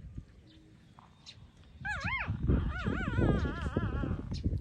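Young puppy whining in high, wavering squeals, starting about two seconds in and running for about two seconds, over low rustling and bumping.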